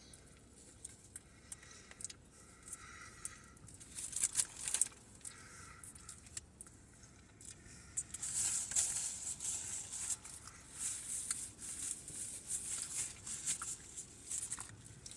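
A person chewing a mouthful of McDonald's McDouble cheeseburger close to the microphone: irregular crackly clicking mouth sounds, sparse at first and busier from about halfway in.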